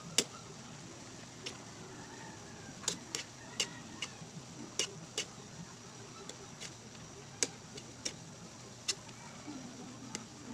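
Metal ladle and spatula clinking against a steel wok while tossing bihon noodles with cabbage: about a dozen sharp, irregular clinks over a steady low hiss.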